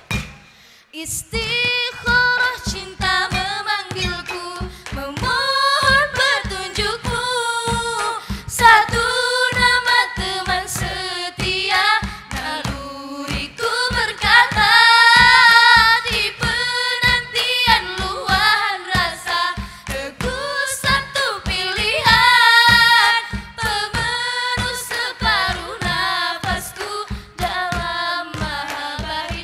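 Female vocal group singing a nasyid into microphones, with long, ornamented sung notes over a steady low drum beat. There is a brief break about a second in before the singing resumes.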